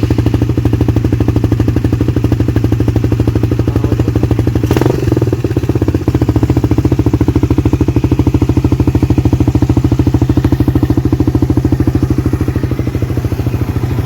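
Suzuki Raider 150's single-cylinder four-stroke engine idling loudly and steadily through a gutted exhaust canister, running on an open carburettor with no air filter, with a brief sharp burst about five seconds in.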